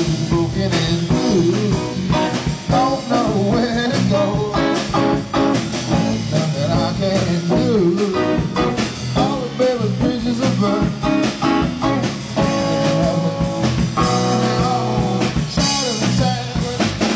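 Live band playing a blues-rock song, led by guitars.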